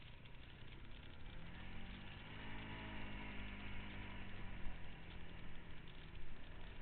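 Off-road vehicle engine running, climbing in pitch about a second and a half in and then easing back down.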